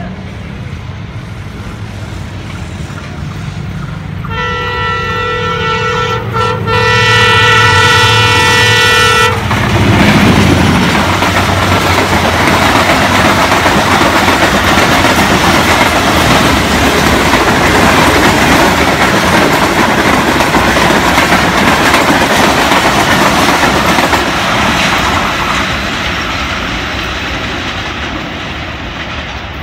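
Pakistan Railways ZCU 30 diesel-electric locomotive hauling an express train: its engine drone builds as it approaches, it sounds its horn in one long blast of about five seconds with a brief break, then the train rushes past at speed, the passenger coaches' wheels running on the rails and fading near the end.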